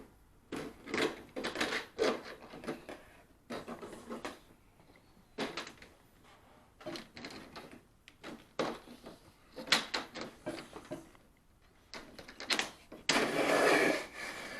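Irregular clunks, clicks and scrapes of metal refrigerator hinge parts and hand tools being handled as the hinge is taken off, with a steadier rasping noise lasting about a second and a half near the end.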